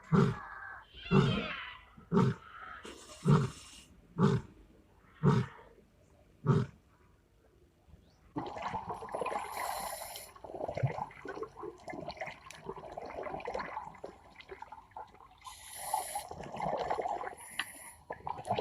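An animal giving a series of short, loud, low calls, about one a second, seven in a row. After a brief pause, a rougher, noisier stretch of animal sound follows.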